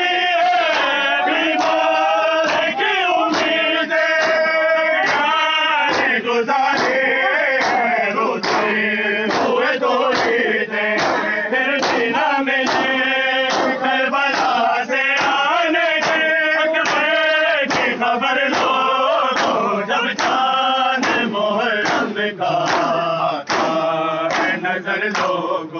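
Men's voices chanting a Muharram noha (lament) together, with a steady beat of hands slapping bare chests in matam.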